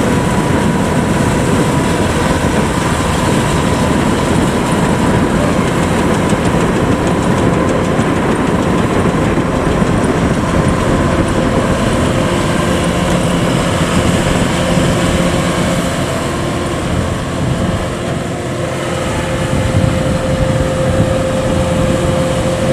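Kubota DC105X combine harvester running steadily as it drives and harvests through flooded rice, its engine and threshing machinery making a continuous drone with a steady whine over it.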